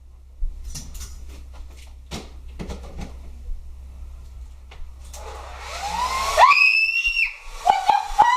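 Hair dryer loaded with baby powder switched on, a rush of blowing air building up about five seconds in. About a second later a woman screams, high-pitched, then shrieks again near the end.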